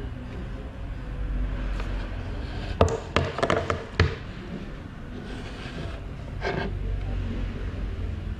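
An acrylic display panel being handled on its LED base: a quick run of sharp clicks and knocks about three seconds in as a hand takes hold of it, and another knock a little later as it is laid over, against a steady low hum.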